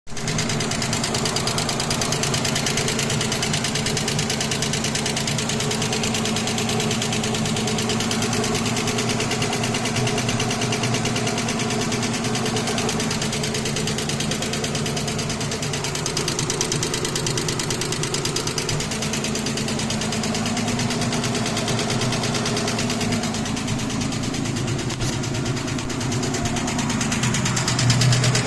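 Mitsubishi 6G72 3.0-litre V6 petrol engine running with a rapid, steady knock, the fault it is recorded for. The engine speed rises briefly near the end.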